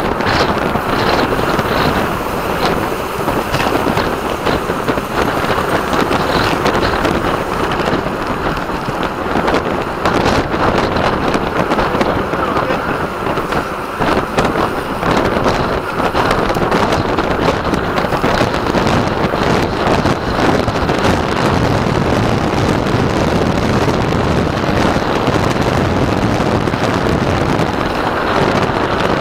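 Steady wind rush over the microphone of a camera riding on a road bike at race speed, with scattered small clicks and rattles.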